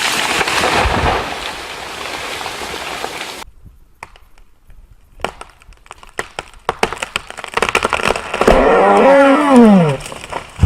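Felled tree's hinge wood cracking in a rapid run of sharp snaps. Then a loud pitched creak that rises and falls as the trunk goes over. Before these, a steady rushing noise breaks off suddenly.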